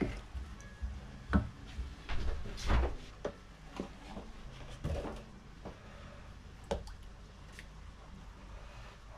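Kitchen handling sounds: a wooden spoon knocking and scraping in a steel saucepan and a glass measuring jug being handled, with a string of sharp knocks in the first five seconds. The knocks then thin out as cream is poured into the pan.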